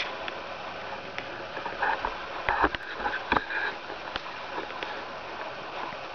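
Steady hiss with a short run of crunches and rustles in dry leaf litter, a few sharp clicks among them, about two to three and a half seconds in.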